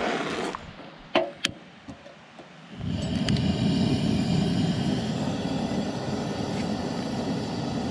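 A knife scrapes chopped onion across a plastic cutting board into a metal bowl, with two sharp clicks. About three seconds in, a camp stove's gas burner starts a steady rushing roar under a cast iron skillet.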